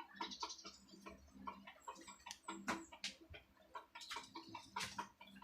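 Faint, irregular clucking of chickens, mixed with scattered small clicks.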